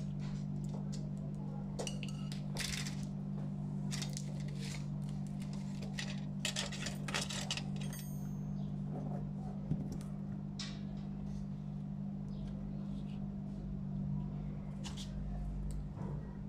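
Small magnets and a stiff wire being handled and set down on a tabletop: irregular light clicks and clinks, over a steady low hum.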